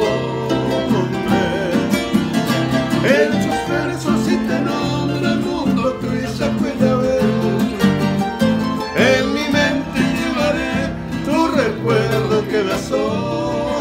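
Two men singing a Spanish-language ballad together, accompanied by a strummed acoustic guitar.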